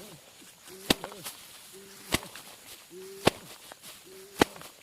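Hand work at a rice harvest: a sharp whack every second or so, each preceded by a short low hum-like sound.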